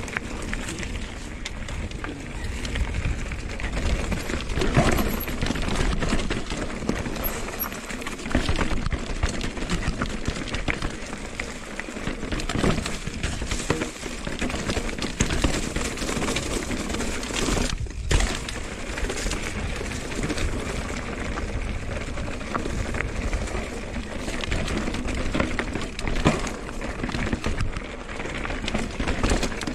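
Mountain bike descending a rocky trail: tyres rolling over rock and gravel, with frequent knocks and rattles from the bike.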